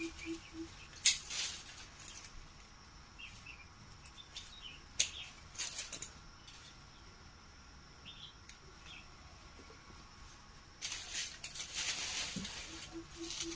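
Leafy wampee fruit branches rustling as they are handled, with a few scattered sharp clicks; the loudest click is about a second in, and a longer stretch of rustling comes near the end.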